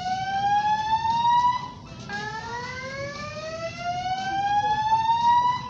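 Building fire alarm evacuation system sounding its whoop tone: a tone that rises steadily in pitch over about four seconds, then drops back and starts rising again about two seconds in.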